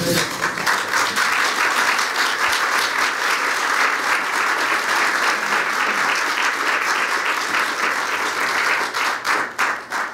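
Audience applauding: dense, steady clapping that thins into a few separate claps near the end.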